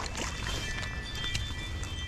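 A hooked fish splashing at the water's surface as it is reeled in to the bank, with a few sharp clicks. A high held musical chord sounds over it from about a quarter of the way in.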